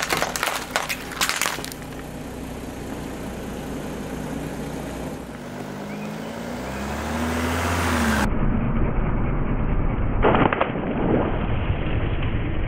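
A car tyre rolling over a row of small plastic portion cups, which crack and pop several times in quick succession. A car engine then runs with a low hum, its pitch rising and falling briefly. About ten seconds in, a rubber glove filled with water beads bursts under the tyre with a short cluster of cracks.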